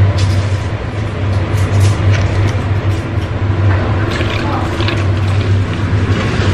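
Steady low machine hum with an even rushing noise, and a few light clicks and taps.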